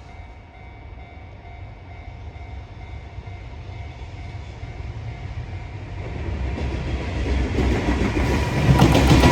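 Freight train hauled by an EF210 electric locomotive approaching, its rumble growing steadily louder. Near the end the wheels start clattering over the rail joints as it draws level.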